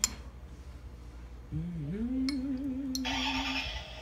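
A person humming one long note that scoops up in pitch and then wavers steadily, with a brief hiss near the end.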